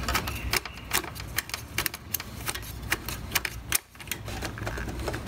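Rapid, irregular light clicks and taps of fingers working a motorcycle speedometer cable's knurled nut loose from the back of the speedometer, the chrome console and cable shifting against each other, with a short pause just before four seconds in.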